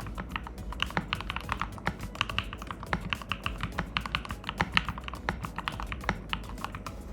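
Typing on a GKS68 mechanical keyboard with Gateron Milky Yellow linear switches lubed with Krytox 205g0: a fast, irregular run of keystrokes.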